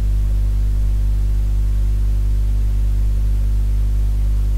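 Steady low hum with a stack of evenly spaced overtones, over a faint hiss.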